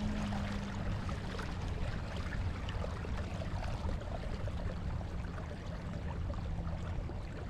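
Water lapping and trickling around a kayak hull, with small scattered ticks and splashes over a steady low rumble, and a faint steady hum that drops out about a second in and returns around the middle.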